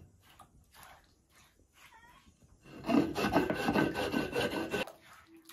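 Stone roller (metlapil) rubbing and grinding wet green salsa across a stone metate. A gritty scraping lasts about two seconds, starting about three seconds in.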